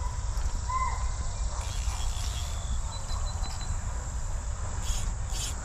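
Insects, crickets by their sound, trilling steadily high up. Near the end a run of rapid high chirps starts, about two or three a second, over a low rumble.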